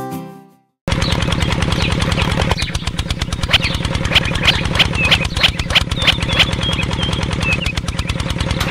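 Background music fades out; about a second in, the small motor of a miniature fruit juicer cuts in abruptly and runs steadily with a fast, even beat. Short high chirps sound over it from the middle on.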